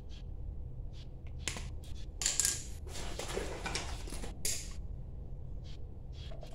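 Pliers snipping and scraping at insulated electrical wire, the insulation being cut and stripped back to bare copper: a run of short sharp clicks, with a longer scraping rustle in the middle.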